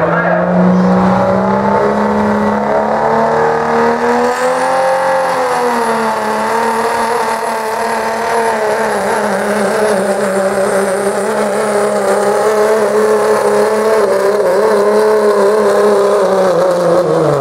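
Dodge Ram pickup's Cummins turbo-diesel engine held at full throttle under heavy load, dragging a weight-transfer pulling sled. The pitch rises and sags a little about four to six seconds in, then holds steady, with a thin high whistle joining about four seconds in. Near the end the engine note drops away suddenly as the throttle comes off at the end of the pull.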